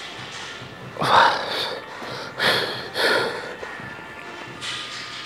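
A person breathing hard in short, noisy exhales, four or so spaced about a second apart.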